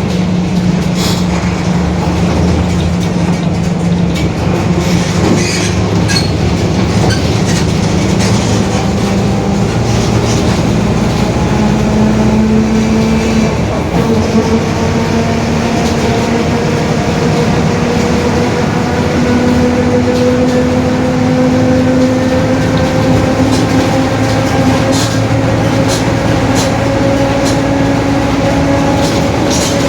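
Mercedes-Benz OF-1721 city bus under way: the diesel engine running, its pitch stepping up a few times, over a whine that climbs slowly as the bus gathers speed. The whine is the differential droning, a sign of a worn differential. Light rattles come and go throughout.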